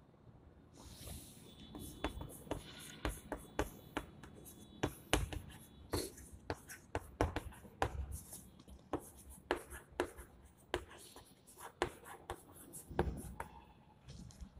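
Chalk writing on a chalkboard: a quick, irregular run of sharp taps and short strokes as a line of words is written, stopping shortly before the end.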